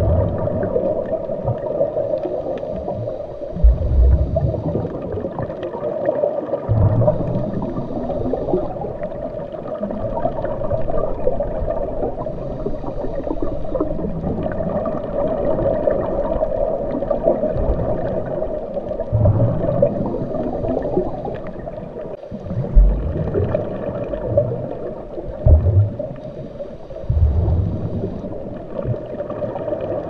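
Muffled underwater water sound: a continuous low rumbling and gurgling, with low thumps every few seconds.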